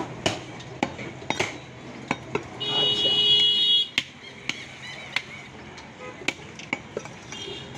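Irregular sharp knocks of cleavers chopping meat on wooden chopping blocks. About two and a half seconds in, a loud steady high-pitched tone sounds for just over a second.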